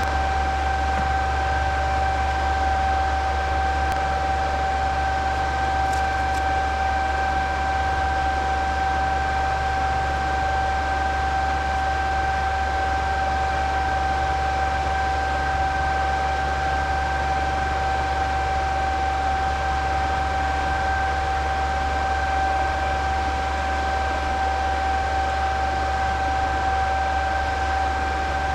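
Cooling fans of crypto-mining equipment running steadily: an even whir with a constant high-pitched whine and a low hum underneath.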